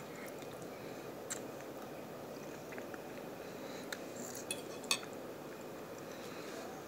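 Faint clinks of a fork against a dinner plate while eating: a few scattered clicks over a steady low hiss, the sharpest about five seconds in.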